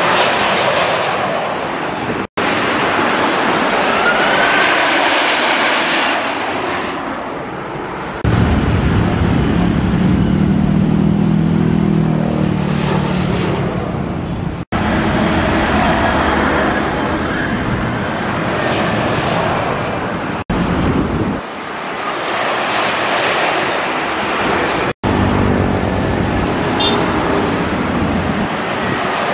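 Busy road traffic, mostly motorbikes and cars passing in a steady stream, with a deeper engine hum through the middle stretch. The sound breaks off abruptly several times where short clips are joined.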